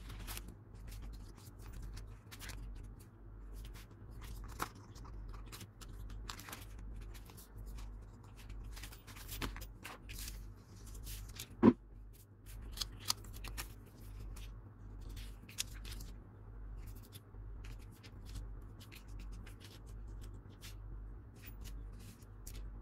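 Hands handling paper, stickers and clear plastic binder sleeves: rustling and scattered light taps and clicks, with one sharp thump on the desk a little before halfway. A low hum pulses about once a second underneath.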